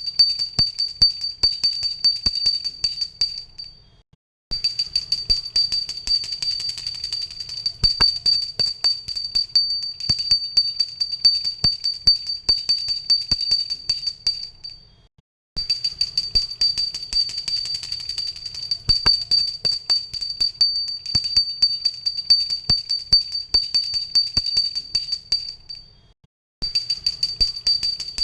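Pooja hand bell rung continuously with quick, even clapper strokes, giving a bright high ring. It stops briefly three times, each pause about half a second, then starts again.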